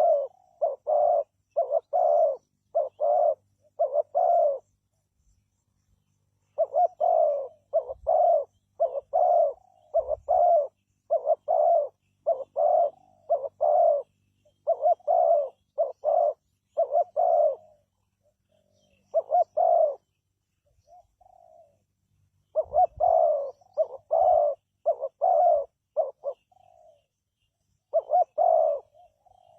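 Spotted dove cooing: runs of short, husky coos about two a second, broken by brief pauses.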